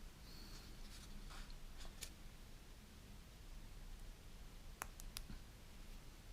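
Faint handling sounds of small parts of an RC car ball differential being assembled: a few soft scrapes, then three quick sharp clicks just before five seconds in.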